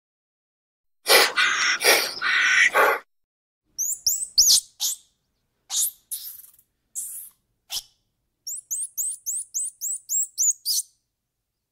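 Squirrel monkey calling: a loud, harsh call about a second in, then scattered high-pitched rising chirps, and near the end a rapid run of about a dozen chirps.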